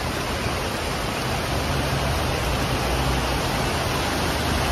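Heavy tropical rain pouring down onto a flooded street: a loud, steady hiss of rain and running water.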